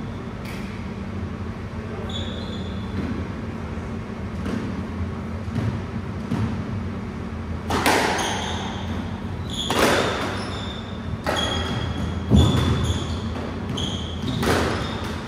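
Squash rally: a squash ball struck by rackets and smacking off the court walls, each hit ringing in the hall, with athletic shoes squeaking on the wooden floor between shots. The hits come every one to two seconds, louder from about halfway through.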